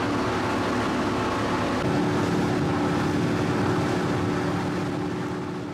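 Motorboat running fast under power: a steady engine drone mixed with hull and water rush, heard from inside the boat's cabin, fading out at the end.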